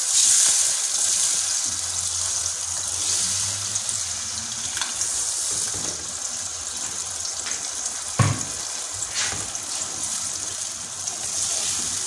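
Liquid blended spice mixture being poured into hot oil and onions in a metal pot, sizzling and bubbling steadily as it is stirred with a wooden spatula. A single sharp knock about eight seconds in.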